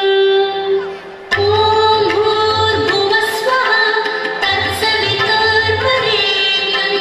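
Carnatic-style dance music with a female singer, accompanying a Bharatanatyam dance. A held sung note fades about a second in. The song then comes back in with drums under the melody.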